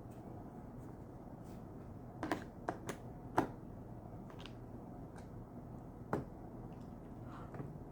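A handful of sharp little clicks and taps, several close together a couple of seconds in and one more about six seconds in, over a low steady hum: parts of a Volkswagen fresh air box being handled during assembly.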